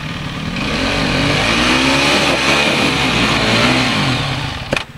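Trail bike engine revved up and down several times as the rider works it up a rocky step, with a sharp knock near the end.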